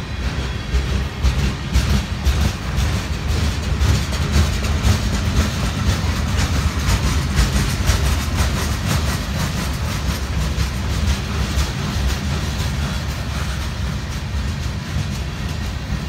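Boxcars of a long freight train rolling past: a steady low rumble of the cars with many irregular clicks and clanks from the wheels on the rails.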